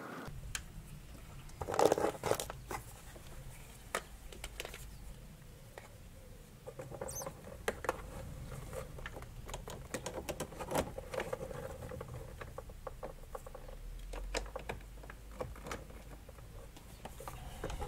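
Crocodile clips and leads of a battery tester being handled and clamped onto car battery terminals: scattered small clicks, rattles and scrapes, with a louder scrape about two seconds in.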